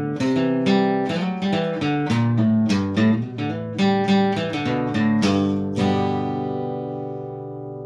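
Acoustic guitar music: a quick run of plucked notes ending on a strummed chord that rings and fades.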